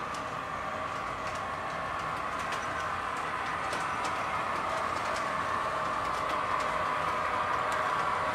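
O gauge three-rail model train running on its track toward the microphone: a steady whirr of wheels and drive with scattered light clicks, growing slowly louder as it approaches.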